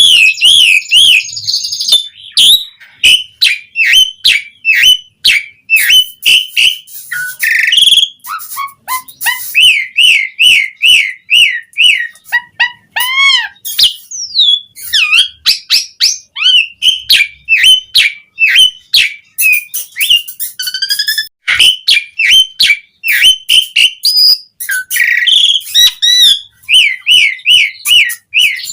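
Asian pied starling singing nonstop: quick repeated whistled phrases that rise and fall, mixed with chatters, sharp clicks and a few lower falling notes.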